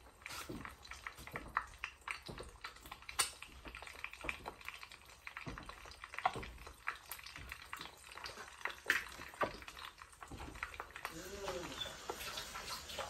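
Hot bacon fat crackling and spitting in a pan, with many irregular sharp pops over a light sizzle. A short wavering whine is heard near the end.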